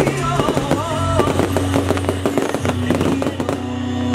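Fireworks display: a rapid barrage of aerial shells bursting, many bangs a second, over music. The bangs stop about three and a half seconds in.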